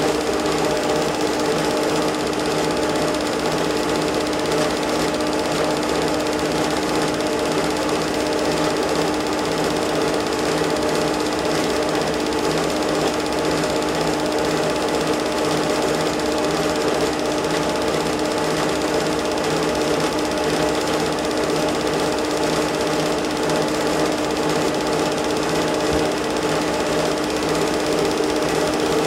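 Home-movie film projector running: a steady mechanical whirr and even, rapid clatter of the film transport, with a constant hum.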